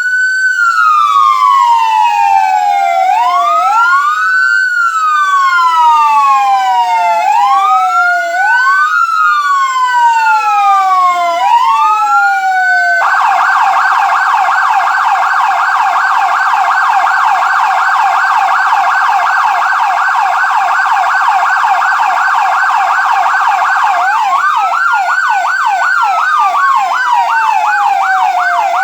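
SoundOff dual-tone electronic siren (ETSA462HPP) playing loud through two 100-watt Whelen speakers, first as a wail, its pitch falling and rising every couple of seconds with a second, offset sweep overlapping it. About 13 seconds in it switches to a fast warble of rapid pitch sweeps. Near the end a slow wail rises and falls again on top of the fast warble: the two speakers sound two tones at once.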